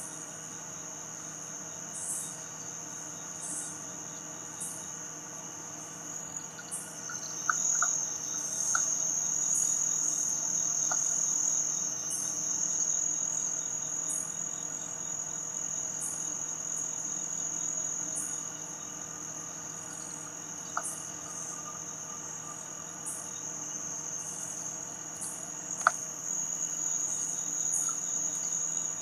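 Night chorus of crickets and other insects singing a steady high trill that grows louder about seven seconds in, with a pulsing call above it repeating roughly once a second. A few faint sharp clicks stand out, the clearest near the end.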